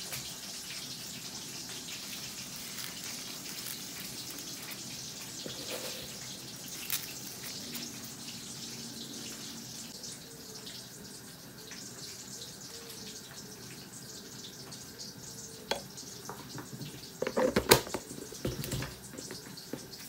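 A steady hiss like running water in a kitchen, fading after the first half, with scattered clicks and a short burst of knocks and clatter near the end.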